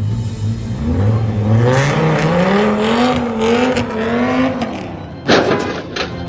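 Car engine accelerating, its note climbing steadily and then holding before it drops away, followed by a single loud bang about five seconds in and a smaller knock just after.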